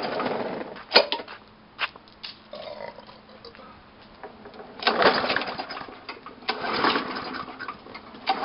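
Four-stroke walk-behind lawnmower being pull-started: a few hard yanks of the recoil starter cord, each a short rush of the engine turning over without catching, with a couple of sharp knocks between. The engine will not fire, a sign it still needs priming or choking.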